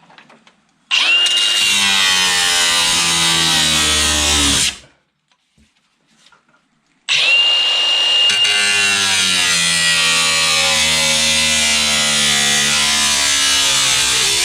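Cut-off wheel cutting through the sheet steel of a car's rear quarter panel in two long passes, each starting with a high whine that drops in pitch as the wheel bites into the metal, with a short pause between.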